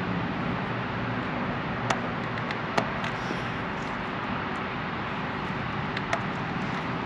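A few sharp plastic clicks as the mower's cooling-fan wiring connector is handled and plugged back in, over a steady low hum.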